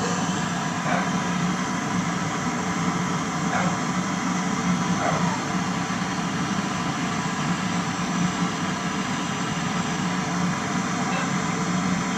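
Steady machine noise: a constant low hum under an even hiss, with a few faint short chirps.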